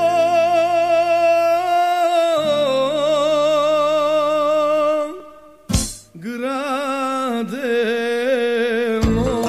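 Soundtrack song: a solo voice holding long notes with a heavy wavering vibrato over a low sustained accompaniment, breaking off about five seconds in and starting again a moment later. Near the end a fuller band comes in with a beat.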